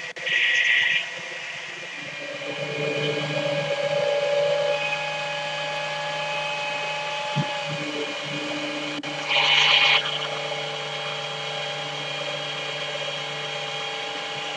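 Flatbed tow truck's hydraulics and winch running as the bed carries a car up and levels it: a steady mechanical whine whose pitch shifts a few times, with two short bursts of hiss about half a second in and again about nine seconds in.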